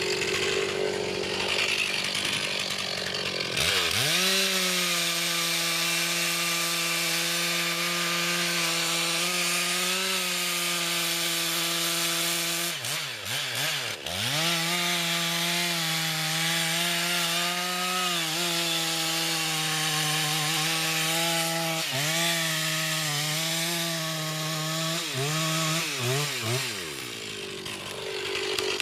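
Chainsaw running at high revs, cutting wood. It comes up to speed about four seconds in, dips briefly about halfway, wavers under load near the end, then stops a couple of seconds before the end.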